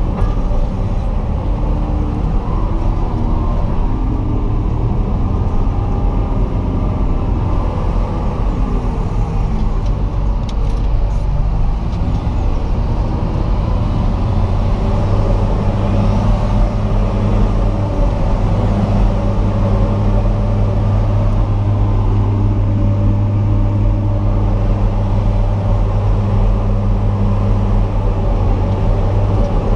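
JCB 437 HT wheel loader's diesel engine running steadily under load, heard inside the cab while it pushes silage on the clamp.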